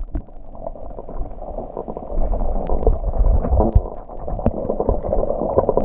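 Water heard from under the surface through a submerged camera housing: dull, muffled sloshing and bubbling with many small scattered clicks.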